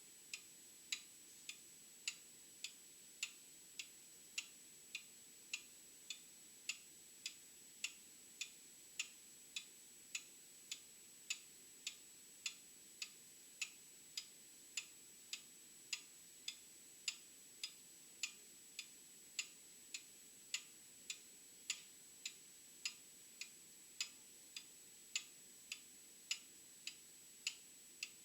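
Old mechanical clock ticking steadily, a little under two ticks a second, some ticks slightly louder than others.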